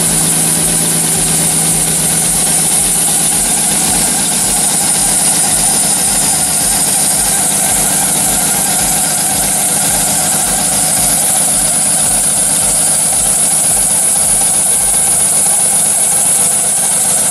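A 6.2 L Vortec V8 idling, heard close up at the front accessory drive, with a steady high-pitched noise from the belts and pulleys. It is the kind of noise typical of a dry serpentine or AC belt, or of a worn tensioner, alternator or water-pump bearing, which is what the owner suspects.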